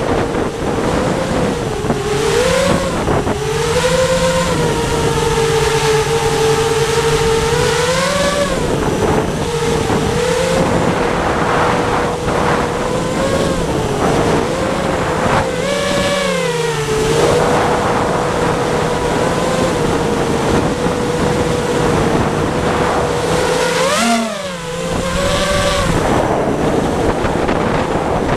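FPV quadcopter's brushless motors and propellers whining steadily, recorded on the onboard camera. The pitch rises and falls in short swells as the throttle is punched, about four times, over a rushing noise of wind and airflow.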